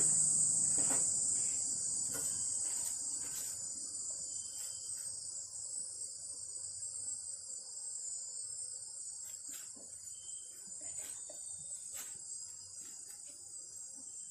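A steady, high-pitched chirring chorus of insects, with faint scattered clicks and taps.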